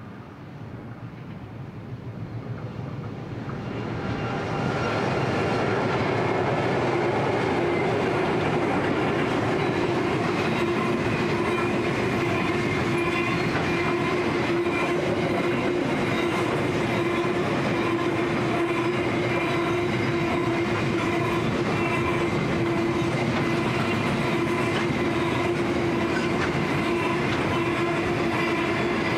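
Pacific National's diesel-electric locomotives 8165, X48 and BL28 (81, X and BL class) pass, growing louder over the first five seconds. Then a long rake of loaded grain hopper wagons rolls by steadily, with wheels clattering over the rail joints and a steady whine.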